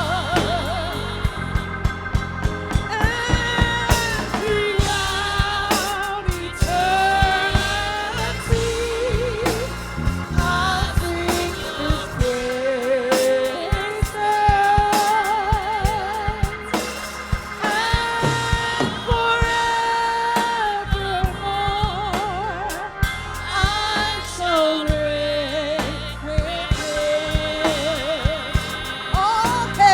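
Live gospel worship music: a singer holds long, wavering notes with vibrato and sliding pitch over a band with bass and drums.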